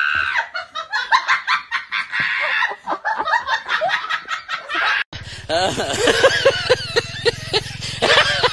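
A person laughing in quick bursts. About five seconds in it cuts abruptly to a steady low motorbike engine hum with calls over it.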